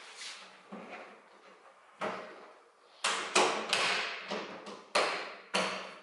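A series of short scraping strokes at a car's trunk lid, each sharp at the start and fading quickly: a few spaced ones at first, then louder ones at about two a second from halfway through.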